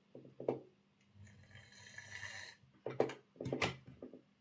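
Small DC motor of a vintage Hornby M7 OO gauge model tank locomotive running briefly on a test track, a buzzing whirr that comes and goes, with a few knocks as the model is handled.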